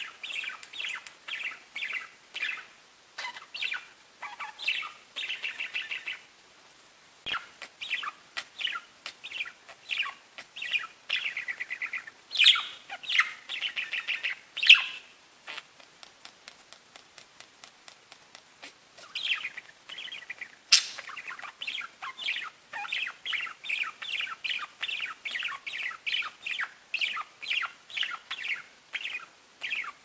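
Budgerigars (pet parakeets) chirping and warbling in quick runs of short chirps, with a lull of a few seconds past the middle and one sharp, loud chirp about two-thirds of the way through.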